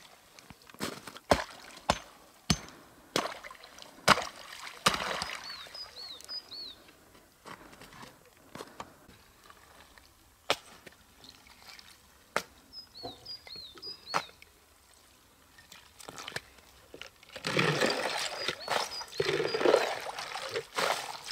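Sharp knocks and clinks of ice being broken up and lifted out of a hollowed-log water trough, then water splashing and pouring near the end as the trough is scooped clear with a plastic bowl. A small bird chirps faintly twice.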